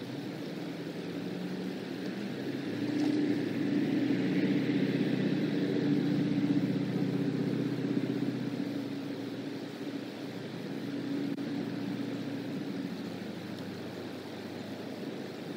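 A motor vehicle's engine hum that swells for several seconds as it passes and then fades, with a smaller swell near the end.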